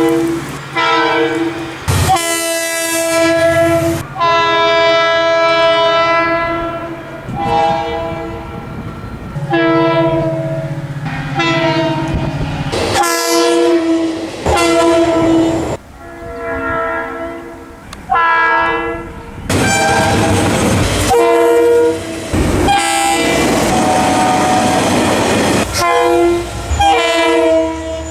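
Train air horns sounding a string of blasts of different lengths, in short clips cut abruptly one after another, with the clatter of passing train wheels under some of them.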